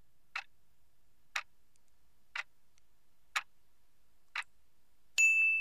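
Countdown-timer clock ticks, five of them, one a second, then a ringing ding near the end that marks time up.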